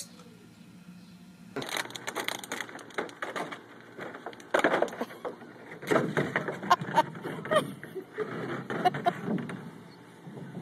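An upturned hard plastic wading pool scraping and knocking across concrete as a small dog walks along underneath it. The rough scraping starts about a second and a half in and goes on unevenly.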